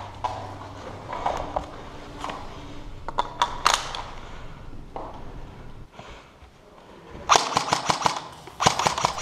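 Airsoft rifle firing on full auto: scattered sharp clicks early on, then two loud bursts of rapid shots starting about seven seconds in.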